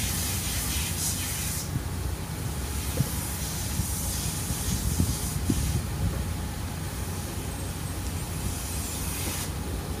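Car wash vacuum running with a steady low drone and an airy suction rush through its hose; the rush drops about two seconds in and comes back strongly near the end. A couple of light knocks from the nozzle in the middle.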